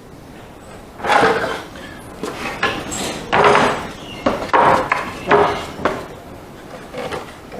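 Loose wooden boards, pieces of a rotten boat bulkhead, being handled and set in place: a run of irregular knocks and scrapes of wood, about half a dozen.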